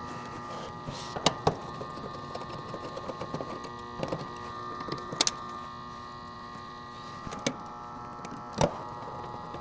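Scattered clicks and taps of hands and tools working a motor's green ground wire onto its terminal, about six short knocks in all. Behind them is a steady hum with several fixed tones.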